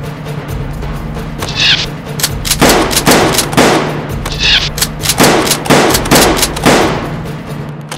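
A run of loud gunshot-like bangs, about two a second, starting about two and a half seconds in, over a low steady hum. A short high swish sounds now and then.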